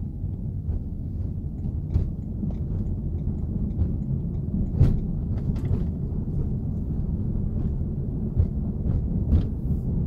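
Low, steady road and tyre rumble inside the cabin of a BMW i3 rolling downhill on electric drive with regenerative braking, its range-extender engine not running. A few short sharp knocks or clicks break through, the loudest about five seconds in.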